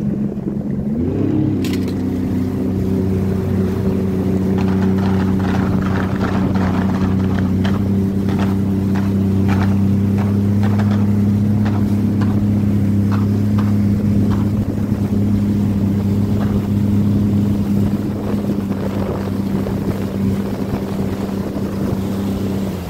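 A Sea-Doo personal watercraft's engine rises in pitch as it picks up speed about a second in, then holds a steady cruising drone. Water slaps and splashes against the hull come in a run of sharp hits through the middle.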